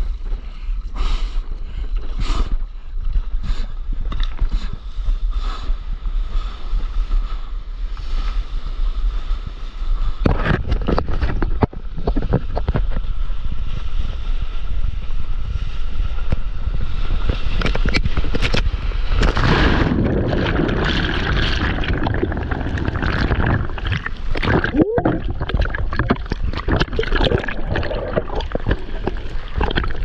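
Water splashing and rushing around a surfboard, with wind buffeting the microphone. Scattered splashes at first, then about ten seconds in a louder, continuous rush of whitewater as the board rides through broken foam, loudest past the middle, with a brief cut-out near the end.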